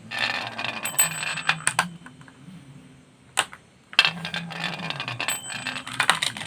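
Toy cars and trucks being handled and rolled, rattling with small sharp clicks and clinks. It goes quieter for about two seconds in the middle, broken by a couple of sharp clicks, then the rattling picks up again.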